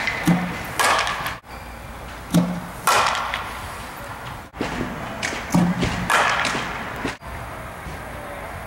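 Three fastpitch softball swings in an echoing indoor hall: each time a pitching machine launches the ball with a short low thud, and about half a second later the bat strikes it with a sharp crack that rings on.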